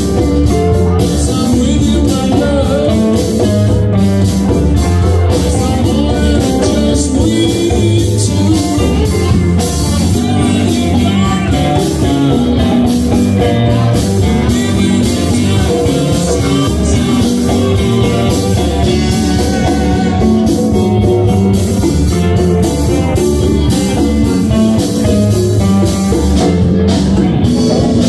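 Live band playing a blues-rock number: electric guitars, bass and drum kit, with hand-played congas and a voice singing.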